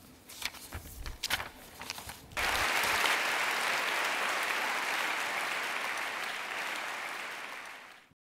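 Audience applauding: clapping breaks out suddenly about two seconds in, holds steady, then fades out near the end. Before it, a few soft knocks and rustles.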